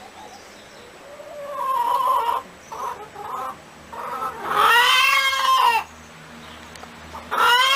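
Hen clucking and cackling: a string of short calls, then a loud, drawn-out call about a second long near the middle, and another loud call starting near the end.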